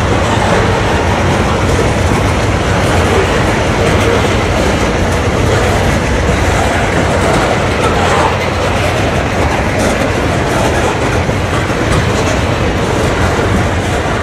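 Covered hopper cars of a heavy freight train rolling past close by: a steady, loud rumble of steel wheels on the rails.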